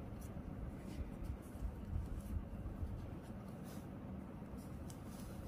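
Faint handling sounds: light rustling and a few soft clicks from hands working with a crocheted pencil case and its zip.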